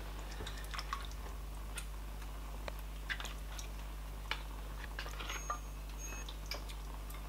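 Faint splashes, drips and light clicks of a ladle scooping pepper soup from a pot into a bowl, scattered and irregular, over a steady low hum.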